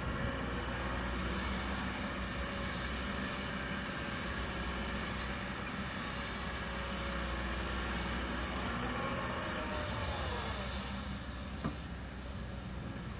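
Kobelco hydraulic excavator's diesel engine running steadily under working load, with a brief whine that rises and falls in pitch near the end and one sharp knock shortly after.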